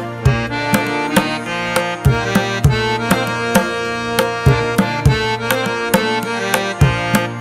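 Background music: a steady beat of drum strikes over sustained instrumental tones.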